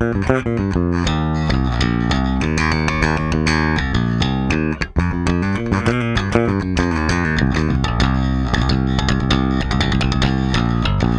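Spector NS Pulse five-string active bass with EMG 40DC pickups, played fingerstyle in a continuous run of quickly changing plucked notes, with the preamp's treble boost turned all the way up and the bass boost flat. The playing breaks briefly about five seconds in.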